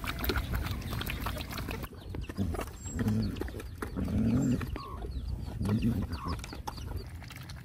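Several dogs lapping and chewing food from a metal bowl. From about two seconds in, a hen clucks low several times while a chick cheeps faintly.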